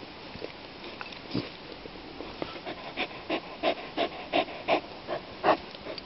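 Small shaggy dog breathing close to the microphone. From about halfway in, a run of quick breaths comes at about three a second.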